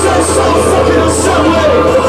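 Loud live rock band playing: electric guitar, keyboards and drums, with short high cymbal-like hits every half second or so, heard from within the crowd.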